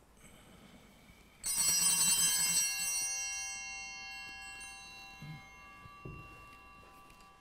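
Sanctus bells (a cluster of small altar bells) shaken for about a second, then ringing on and slowly fading, rung at the consecration of the host as the celebrant genuflects. A couple of faint soft knocks follow near the end.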